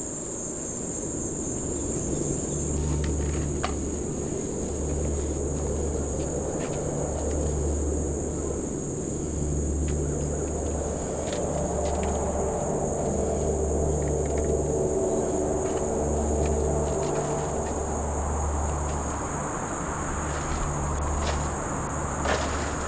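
A steady, high-pitched insect chorus, with a low throbbing pulse repeating about every two seconds beneath it. A low, layered drone swells in the middle and fades again.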